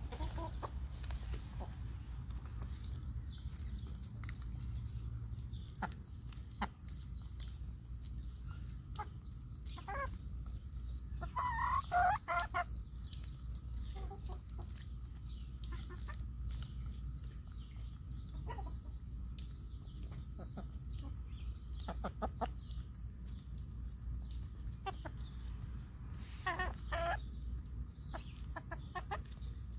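Chickens clucking while they peck corn kernels off a hand-held cob, with many sharp clicks of beaks on the cob. A louder burst of calls comes about twelve seconds in and another shortly before the end, over a low steady rumble.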